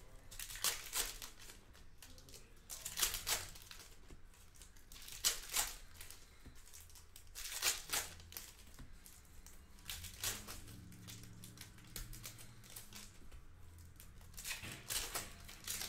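Foil wrappers of Panini Hoops basketball card packs being torn open and crinkled by hand, in short bursts of tearing and rustling every two to three seconds.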